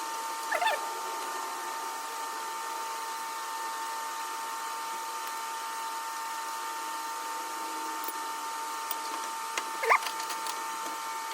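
A steady high electrical hum, with a brief squeak about half a second in and a sharp click near the end.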